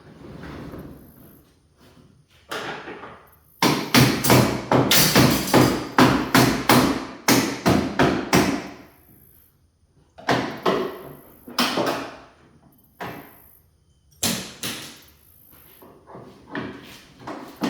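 Rapid knocking and clanking from work on a sectional garage door, in a long dense run of strikes and then several shorter bursts.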